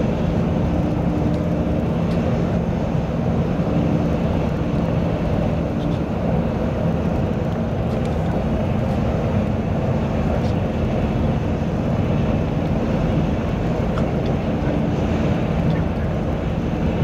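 Steady engine drone and tyre noise heard inside a vehicle's cabin cruising at expressway speed, with a low, even hum.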